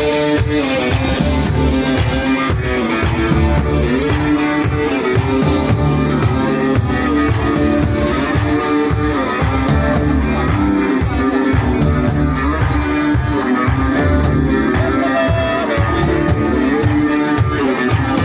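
Live band playing an instrumental during a soundcheck: guitar over bass, with a steady beat.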